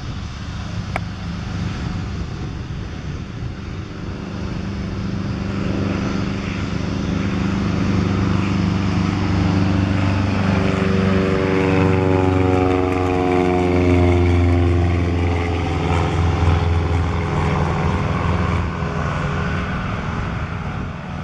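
Single-engine Cessna's piston engine and propeller at climb power just after takeoff, growing louder as it approaches. About halfway through the pitch drops as it passes, and the sound then fades as it climbs away.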